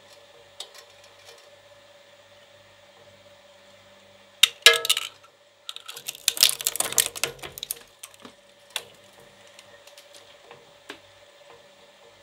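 A die-cast Hot Wheels toy car drops onto the steel cutter discs of a small twin-shaft shredder with a sharp metallic clang. About a second later it rattles and crunches in the blades for roughly two seconds, over the steady hum of the shredder's motor, with a few scattered clicks.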